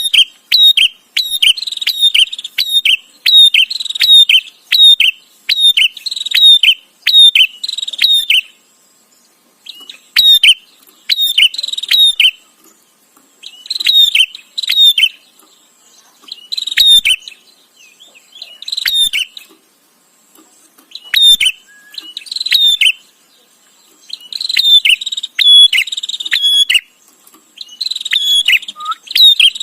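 Prenjak (a small prinia) calling loudly and insistently: runs of rapid, sharp, chattering notes in clusters, broken by brief pauses.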